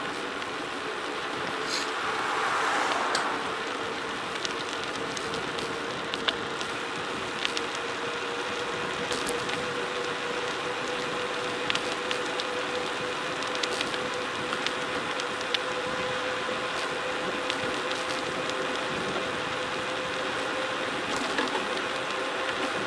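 Tyres rolling down a gravel forest road: a steady rushing noise with scattered sharp clicks and knocks from stones and the rig. A steady whine runs throughout, rising slightly in pitch.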